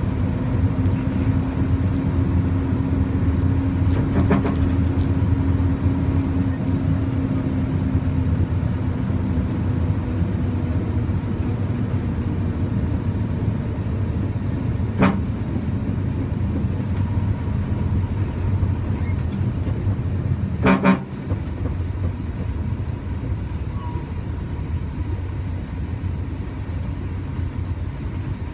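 Steady engine and road drone of a moving truck, with three short horn toots: one a few seconds in, a brief one about halfway, and the loudest about three-quarters of the way through.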